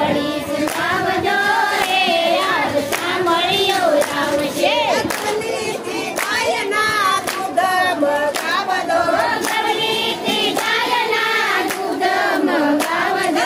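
A group of women singing together in unison, clapping their hands in time with the song.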